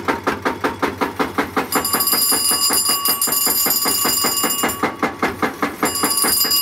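A slow-running engine, started with a glow wick, beats steadily at about five to six firings a second. Over it an electric bell rings steadily for about three seconds, stops, and starts ringing again near the end.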